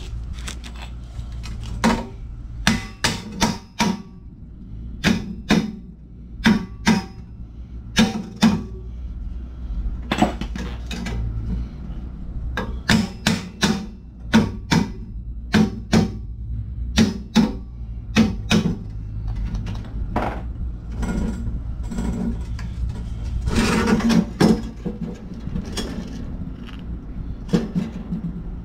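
Hand hammer striking the truck's exhaust pipe and hanger fitting to knock it loose: irregular, ringing metal clanks, often two or three in quick succession, with a longer, rougher clatter about two-thirds of the way through.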